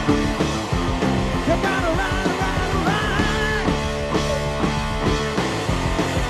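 Hard rock music: full band with electric guitars and a steady drum beat, with a gliding high lead line near the middle.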